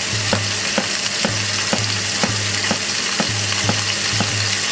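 Kitchen knife chopping an onion on a plastic cutting board, about two strikes a second, over the steady sizzle of chicken wings cooking.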